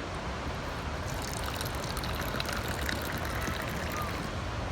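Moroccan mint tea poured from a teapot into a glass, a steady trickle of liquid.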